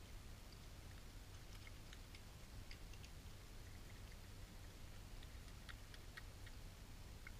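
Faint, scattered clicks and crunches of European badgers eating from a feeding tray, in two clusters about a second in and about five seconds in, over a steady low hum.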